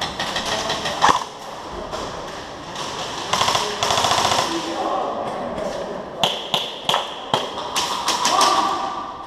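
Airsoft guns firing several bursts of rapid fire, with single sharp cracks between the bursts.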